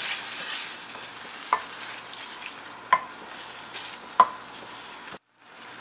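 Onion-tomato masala sizzling in oil in a stainless steel kadai while a wooden spatula stirs it, with a little water just mixed in; the spatula knocks sharply against the pan three times.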